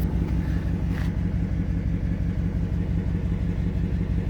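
V8 engine idling steadily through a muffler-deleted exhaust, with an even low pulsing rumble.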